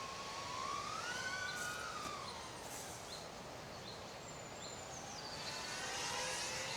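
An FPV drone's motors and propellers whining at a distance, the pitch rising and then falling over the first two seconds or so as the throttle changes, and gliding up again near the end.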